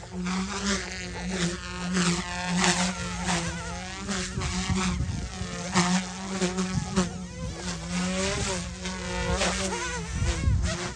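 OMP M2 mini electric RC helicopter in flight: a buzzing motor and rotor whine that rises and falls in pitch again and again, over a steadier low hum.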